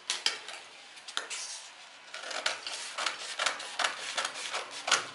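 Scissors snipping through pattern paper in a quick run of short cuts from about two seconds in, after a couple of sharp clicks as a pen and the scissors are handled on the tabletop.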